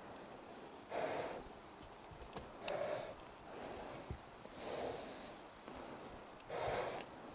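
A person breathing heavily close to the microphone: four breaths, about two seconds apart.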